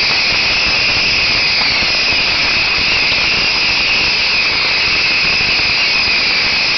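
Massed bottle rockets firing from a beehive fireworks launcher, a dense, unbroken rush of noise at a steady level.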